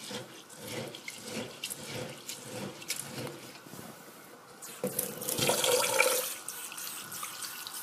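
Hands scrubbing wet Japanese rice in a glass bowl, a run of quick, light swishing strokes as the grains are polished clean. About five seconds in, the kitchen tap is turned on and water runs into the bowl of rice.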